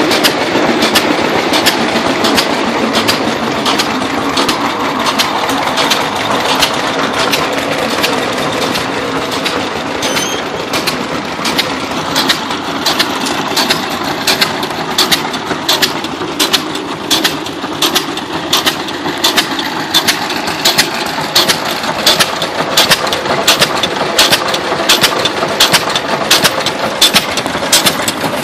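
International Harvester Famous 6 hp throttle-governed stationary engine running steadily. It fires every cycle, giving an even beat of sharp exhaust pops about two to three a second, over the steady clatter of the belt-driven machinery it powers.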